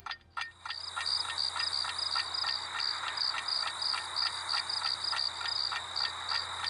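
A chirping night-chorus sound effect, the comic 'awkward silence' kind: rhythmic high chirps, about four or five a second, over a steady high whine. It cuts in suddenly and runs without a break.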